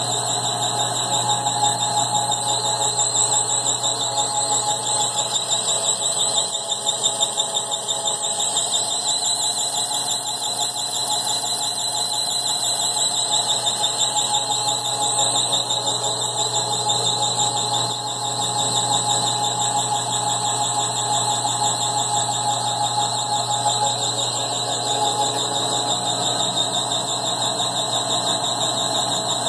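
Metal lathe running while turning 316L stainless steel pipe: a steady, shrill high-pitched whine over a low hum.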